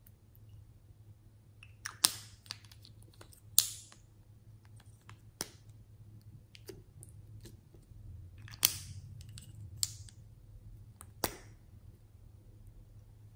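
Small plastic toy lipsticks and caps clicking and tapping as they are handled and set into slime. There are about five sharp, loud clicks spread through the stretch, with fainter ticks between them, over a low steady hum.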